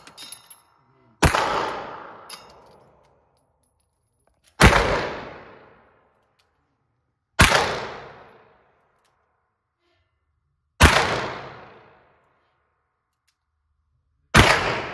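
Five handgun shots fired one at a time, about three seconds apart, each cracking loudly and followed by an echo that fades over about a second in an enclosed indoor range.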